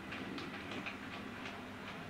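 Model railway trains running on the layout's track: the wheels click unevenly over the rail joints, about three or four times a second, over a steady low motor hum.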